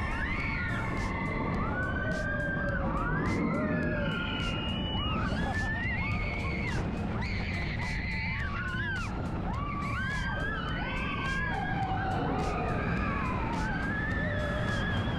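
Music with many overlapping sliding, wailing tones over a steady low rumble.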